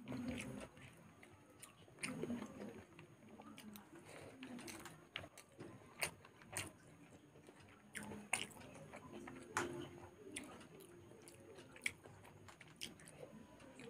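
A person chewing soft food, rice and curry eaten by hand, with wet lip-smacking and sharp mouth clicks every second or two.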